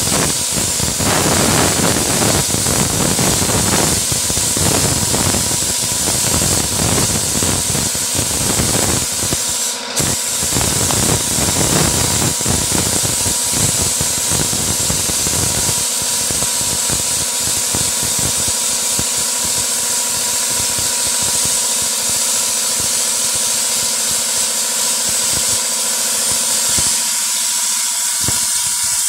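Sandblasting gun blasting abrasive grit onto a glass panel to etch a frosted finish: a loud, steady hiss of compressed air and grit that breaks off for a moment about ten seconds in.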